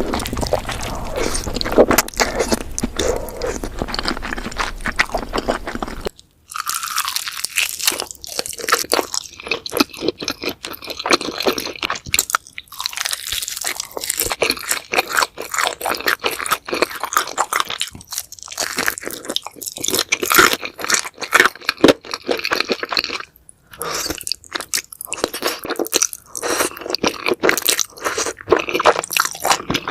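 Close-miked crunching and chewing of crispy fried chicken, a dense run of crackly bites, broken by abrupt cuts about six seconds in and again later on.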